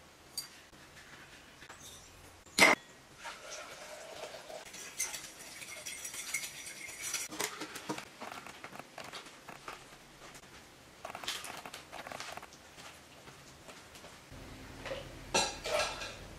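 Kitchen handling sounds while making lemonade: a sharp knock about three seconds in, then lemon halves being twisted and rubbed on a plastic hand citrus juicer. Clinks and clatter of the juicer parts against a glass measuring jug come near the end.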